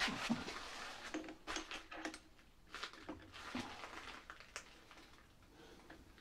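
Scattered metal clinks and knocks, busier in the first couple of seconds and sparser afterwards, as a chuck key is picked up and fitted into a pillar drill's chuck.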